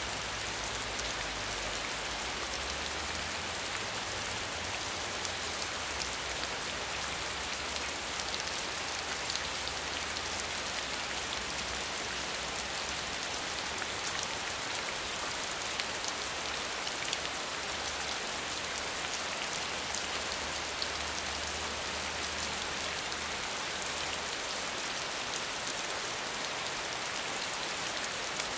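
Steady medium rainfall: an even hiss of rain with many small drop ticks. A faint low rumble lies underneath and fades out near the end.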